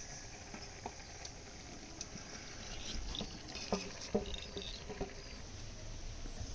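A wooden spatula scrapes fried shrimp masala off a steel plate into an aluminium pot of boiling rice, then stirs it. Three sharp knocks of metal on metal come in the middle.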